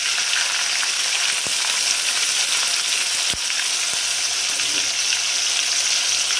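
Onion purée frying in hot oil seasoned with mustard and cumin seeds, giving a steady, loud sizzle. Two sharp clicks come about one and a half and three and a half seconds in.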